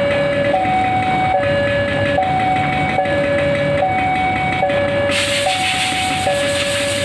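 Railway level-crossing warning alarm sounding, two electronic notes alternating low and high, each held a little under a second. About five seconds in, a loud hiss joins it.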